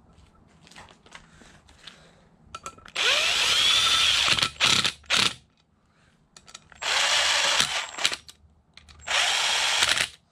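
Cordless drill spinning in the clutch-cover bolts of a Yamaha YFZ450R engine in three short runs, each starting with a rising whine as the motor spins up. After the first run come a couple of quick blips of the trigger, and the last run cuts off just before the end.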